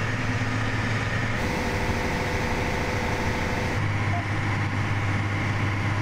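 Large farm machine's diesel engine running steadily at working speed. Its low hum drops away about a second and a half in and comes back near four seconds.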